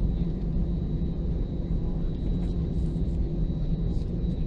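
Steady low rumble of an Airbus A320's jet engines at taxi power heard inside the passenger cabin, with a thin steady high whine above it.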